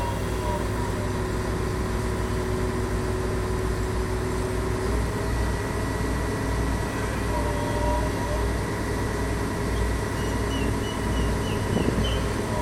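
Heavy machinery running steadily with a low rumble and a held whine that steps up slightly in pitch about five seconds in.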